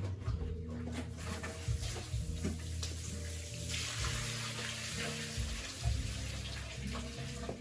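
Water running or splashing, loudest for a couple of seconds midway, with a few light knocks.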